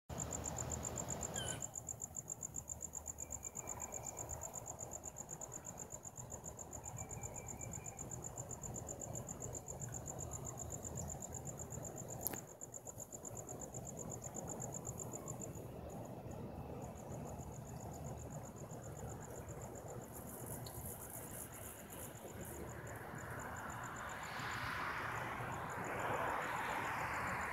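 Insects trilling outdoors at dawn: a steady, high, rapidly pulsing trill that breaks off briefly about halfway through, over a low background hum. A broad rush of noise swells near the end.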